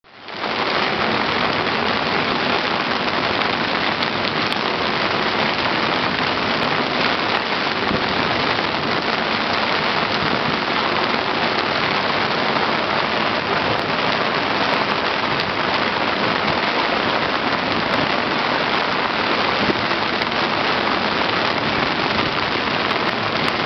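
Heavy rain and wind of a thunderstorm on the open deck of a sailing yacht at sea: a steady, loud rush.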